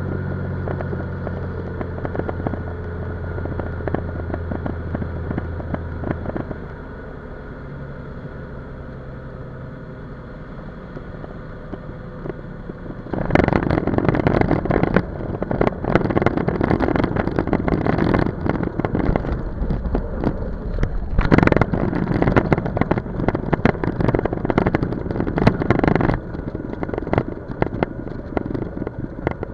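Cessna 206's six-cylinder piston engine running steadily at approach power, throttled back about six seconds in. About thirteen seconds in the wheels touch down on the snowy runway, and a loud, rough rumble with rattling and knocks from the landing gear runs for about thirteen seconds before easing as the plane slows on the rollout.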